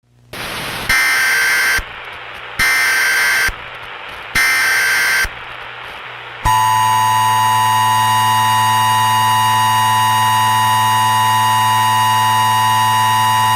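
Emergency Alert System tones: three roughly one-second bursts of screeching data tones, the SAME header, over a hiss of static. About six seconds in, the steady two-tone EAS attention signal begins and holds.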